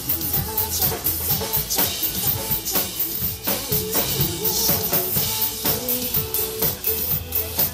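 Drum kit played live over a recorded pop backing track in a stretch without vocals, with a regular beat of kick and snare hits.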